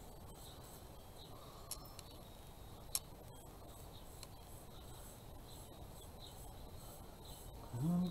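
Light clicks as a wooden frame and a paintbrush are handled over a cup of paint, the sharpest about three seconds in, over a low steady background hum. A short voice sound near the end.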